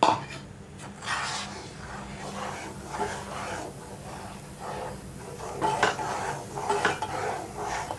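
Wooden spatula stirring a thin milk, butter and egg mixture in a steel saucepan: repeated uneven scraping and sloshing strokes, about one or two a second. A sharp knock comes right at the start.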